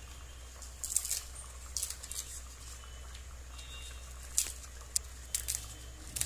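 Crisp fried appalams (papadums) crackling and snapping as they are broken apart by hand, in short clusters of sharp crunches about a second in, around two seconds, and several more in the last two seconds.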